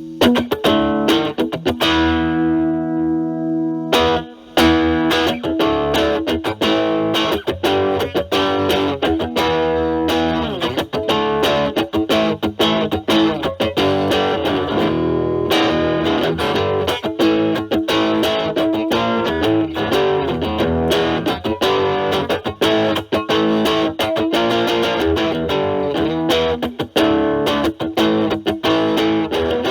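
Electric guitar, a Stratocaster with single-coil pickups, driven through a Metal Pedals Rawhide overdrive/distortion pedal with its gain at maximum into a Marshall Valvestate amp's clean channel. A distorted chord rings for about four seconds, then busy picked riffs and chords follow.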